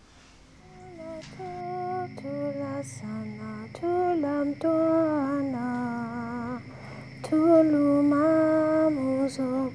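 A woman singing a slow melody of long held notes that bend in pitch, coming in softly about half a second in and growing louder, over a faint steady high tone.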